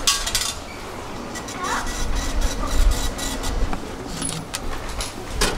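A metro ticket vending machine at work, with many quick metallic clicks and clinks as it handles payment and issues a ticket, over the low rumble of the station.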